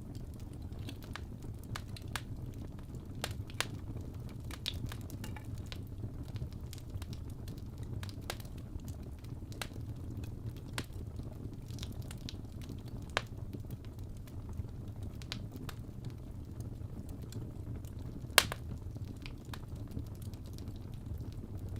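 Wood fire in a fireplace burning with a steady low rumble and scattered sharp crackles and pops from the logs, the loudest pop about 18 seconds in.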